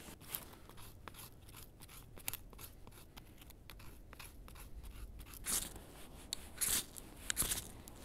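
A knife blade scraping along a thin stick in a run of light scratches. Near the end come three harsher, longer rasps of a ferrocerium rod being struck to throw sparks onto tinder.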